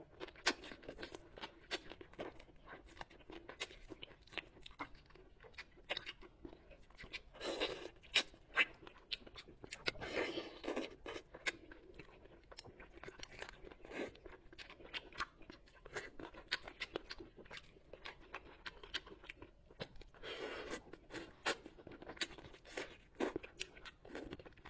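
A person eating soy-braised bullfrog close to a clip-on microphone: wet chewing and crunching with many small clicks throughout, louder in a few bursts.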